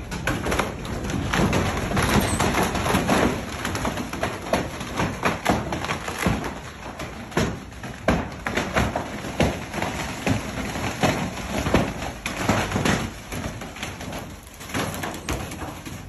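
A wooden dock cracking and splintering under a large yacht's hull: a dense run of sharp cracks, creaks and knocks that eases off near the end.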